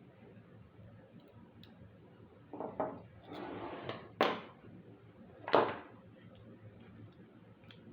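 Handling noises: a few knocks and a scraping rustle as objects are moved and set down, the sharpest knock about four seconds in and another about a second and a half later.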